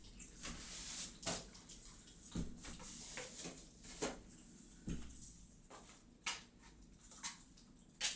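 Kittens moving about and clawing at nearby surfaces: scattered soft taps and short scratchy rustles.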